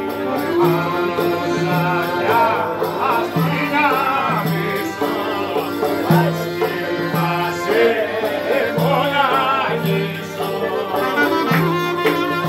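Clarinet playing an ornamented Greek folk dance tune live, with a frame drum beating along.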